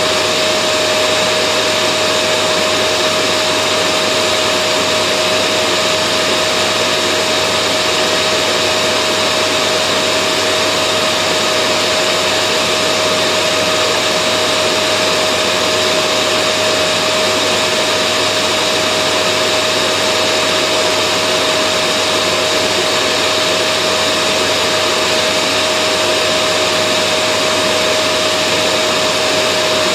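Vacuum cleaner running at a constant speed: a steady rushing noise with an unchanging whining tone.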